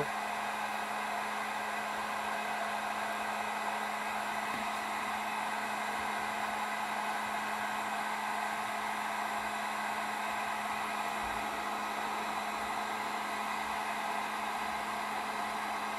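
Heat gun standing upright on its base and running steadily: an even rush of fan-blown air with a constant low hum. It is shrinking heat-shrink tubing on a wiring harness held over its nozzle.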